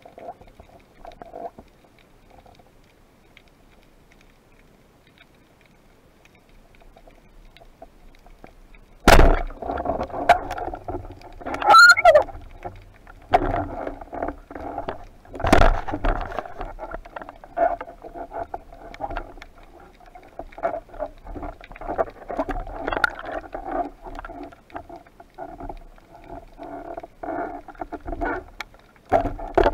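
Underwater, quiet at first, then a sharp crack about nine seconds in as the speargun fires. Irregular knocking, rattling and clicking follow as the speared fish struggles on the shaft and line.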